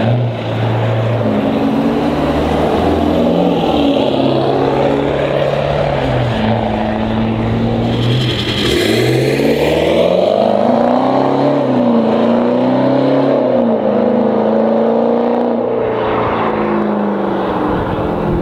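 Mercedes-Benz ML420 CDI's 4.0 V8 diesel (OM629) through a straight-piped exhaust with X-pipe, its catalysts, DPF and muffler deleted, accelerating hard with the engine note rising and falling through the gears. It passes close about nine seconds in and pulls away.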